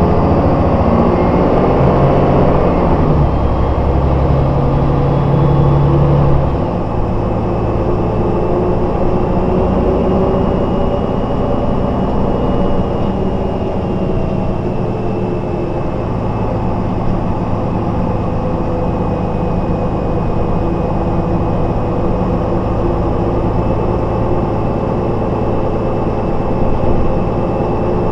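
Heard from inside the cabin, a 1992 MAN SL 202 city bus's diesel engine pulls under load. About six and a half seconds in, the engine note changes and drops a little in level. It then runs as a steady cruising hum with a faint, steady high whine above it.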